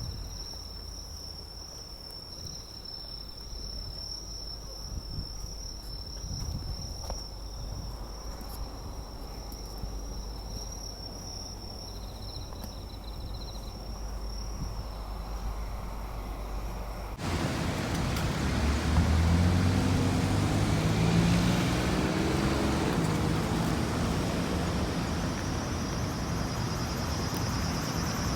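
Insects trilling steadily over low wind rumble. About two-thirds of the way through, the sound cuts abruptly to a louder vehicle engine and road noise, whose pitch rises over a few seconds.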